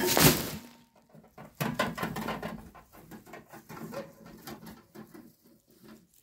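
An armful of dry fallen leaves dumped onto the microphone: a loud rustling crash at the start. About a second and a half in comes a run of quick rattles and clicks as a wheelbarrow loaded with leaves is pushed over grass, fading toward the end.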